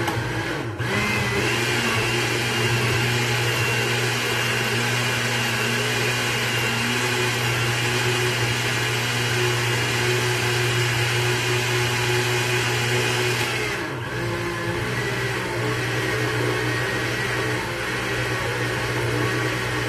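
Countertop blender motor running steadily as it purées a freshly boiled green salsa with serrano chiles, with brief dips about a second in and again around fourteen seconds in.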